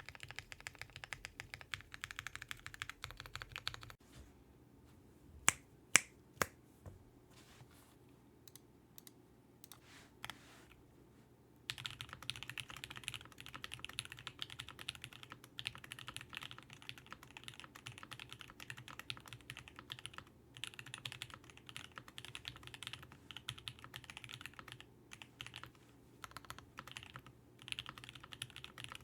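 Typing on a Vega 65% mechanical keyboard with lubed, Tx-filmed Alpaca linear switches and GMK keycaps: quick, continuous key clacking. It pauses about four seconds in, with a few separate presses including three much louder clacks, then steady fast typing resumes about twelve seconds in.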